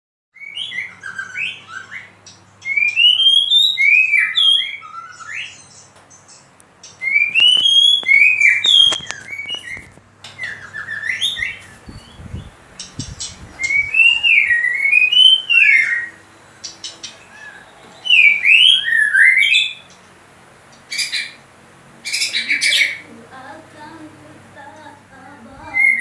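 White-rumped shama (murai batu) in full song: loud phrases of rising and falling whistles, each a second or two long with short pauses between, and two short harsh notes about three-quarters of the way through.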